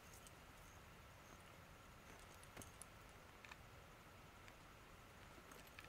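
Near silence: faint outdoor room tone with a steady faint tone and a few soft, scattered clicks.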